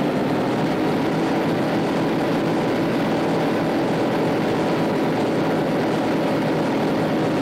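The Wright R-1820 Cyclone nine-cylinder radial engines of a Boeing B-17 bomber running up on the ground in a loud, steady drone, as each engine is taken through its power and magneto check.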